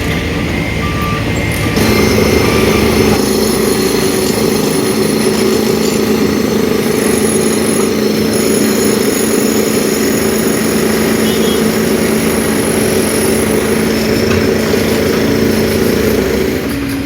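Heavy dump truck engine running steadily at raised revs, with a reversing alarm beeping in the first second or so.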